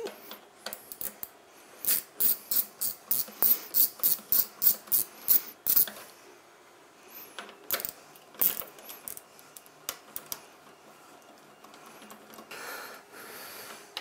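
Hand ratchet with a screwdriver bit clicking as it backs out screws from a washing machine's plastic detergent-drawer housing: quick ratcheting strokes about three a second for some four seconds, then a few more strokes about eight seconds in.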